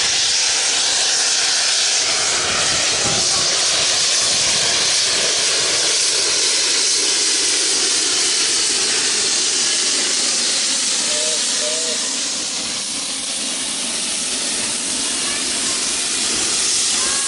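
Loud, steady hiss of escaping steam from steam locomotives, as a GWR large prairie tank engine passes with its coaches beside a standing Andrew Barclay saddle tank.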